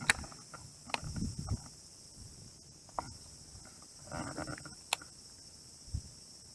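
Steady high-pitched insect chirring, with five sharp clicks spread a second or two apart and two brief soft rustles.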